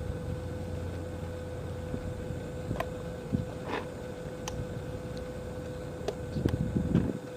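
Boat engine running low and steady under a constant hum, with scattered light clicks and a few louder knocks near the end.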